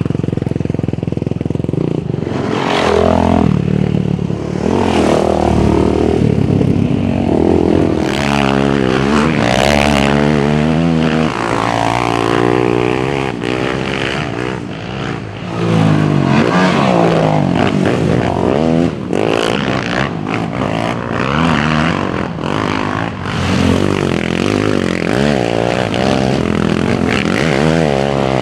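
Single-cylinder four-stroke engine of a 2020 Yamaha YFZ450R sport quad, fitted with an aftermarket Rossier full exhaust, ridden hard. Its pitch rises and falls over and over with throttle and gear changes.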